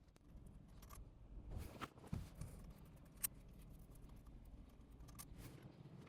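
Faint scattered clicks and light handling noise over a low steady hum; one sharper click a little past three seconds in.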